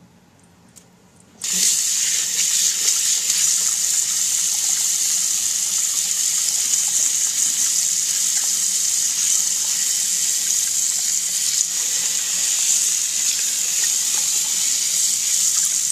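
Water tap turned on about a second and a half in, then running hard into a sink of water over dyed paper pages being rinsed, a steady gushing splash. The flow is fast enough to put pressure on the wet paper and tear it.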